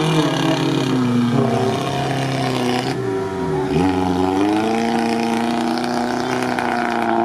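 Several off-road 4x4 engines revving hard at once, their pitches rising and falling as the vehicles push and dig through deep bog mud.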